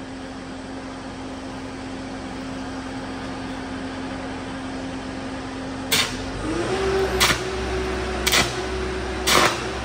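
Engine-driven 800-amp welder humming steadily at idle. About six seconds in, a 7018 arc strikes with a sharp crack, and the engine speeds up to a higher steady hum under the welding load. The arc crackles and pops in loud bursts about once a second.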